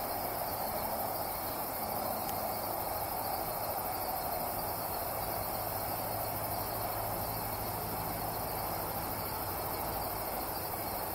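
Night insects droning steadily, with no knocks or calls standing out.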